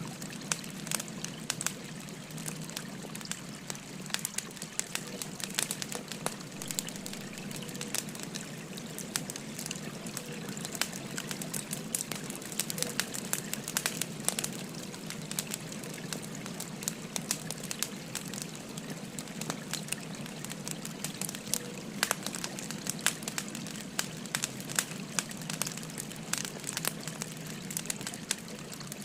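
Wood fire crackling with frequent sharp, irregular pops, over the steady rush of a babbling river.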